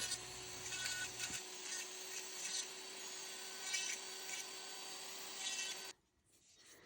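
Power carving tool grinding into dense manzanita root wood, a steady motor whine under the rasping of the bit. It cuts off suddenly near the end.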